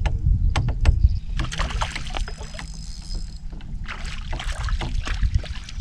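Water slapping against the hull of a fibreglass bass boat, with wind rumbling on the microphone and a few sharp clicks in the first second.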